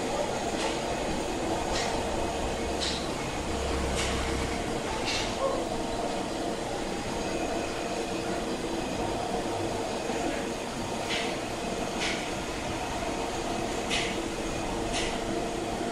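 Steady mechanical hum with a faint constant tone, overlaid by light, irregular clicks or taps, several near the start and a cluster near the end.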